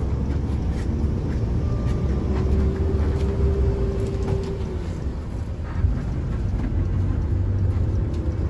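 Bus on the move: a steady low rumble of engine and road noise, with a single steady tone over it for about two seconds, a couple of seconds in.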